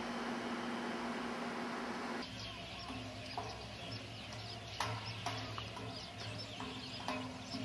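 A steady hiss with a low hum, which cuts after about two seconds to birds calling outdoors: many short high chirps, some lower calls and a few sharp clicks.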